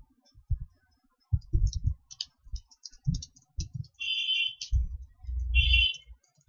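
Computer keyboard being typed on in short irregular runs of keystrokes, each a dull thump with a sharp click. Two longer, hissier sounds come in the second half.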